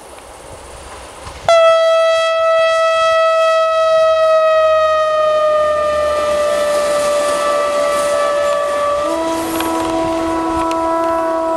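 Horn of the diesel multiple unit MRD-4255 (an ex-Danish MR/MRD railcar) sounding one very long blast that starts suddenly about a second and a half in: the Polish Rp1 'attention' warning signal. The single note sags slightly in pitch, and about nine seconds in it changes to a lower two-note sound.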